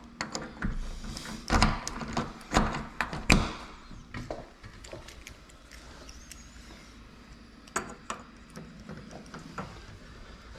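Scattered clicks and knocks of hand work on a lock being rekeyed, with three louder knocks in the first few seconds, then lighter ticking and rattling.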